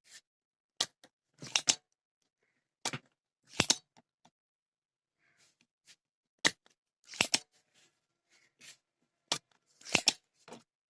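Sharp clicks and snaps from hand tools working on a circuit board as solder is removed from an amplifier IC's pins. There are about a dozen, irregularly spaced and some in quick pairs.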